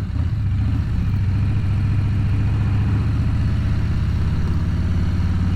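Motorcycle engine running at a steady pace while riding, heard through a helmet-mounted microphone.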